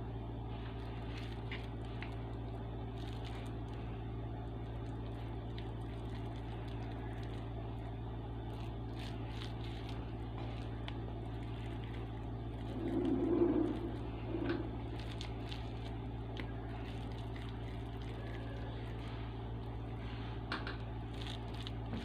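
Soft squishing and faint clicks of hands rolling seasoned ground beef into meatballs, over a steady low hum. A brief louder low sound comes about thirteen seconds in.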